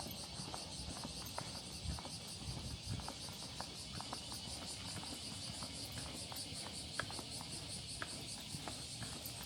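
Insects chirping in a steady, high-pitched, pulsing chorus, with footsteps and scattered sharp clicks throughout.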